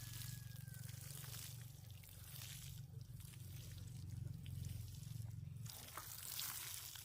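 Water sloshing and splashing in irregular spurts, over a low steady hum that stops about six seconds in.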